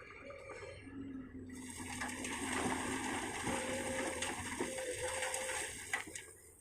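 Komatsu PC200 excavator working, its engine and hydraulics running under load with a pitched whine that shifts up and down. A loud rushing noise builds about a second and a half in and cuts away near the end.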